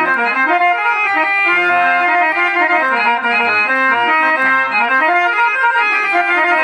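Harmonium playing a quick melodic phrase of short, stepping notes, with occasional lower notes sounding beneath, as stage accompaniment for Telugu padyam drama.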